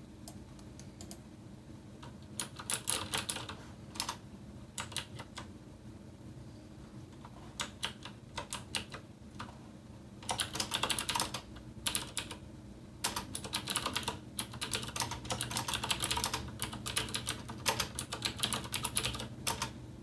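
Typing on a TEX Shinobi mechanical keyboard: runs of quick key clicks with short pauses between them, the runs longer and denser in the second half.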